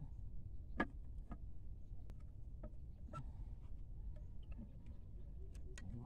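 Scattered light clicks and taps from hands working a tin can, string and wooden sticks, the sharpest just under a second in, over a low steady rumble.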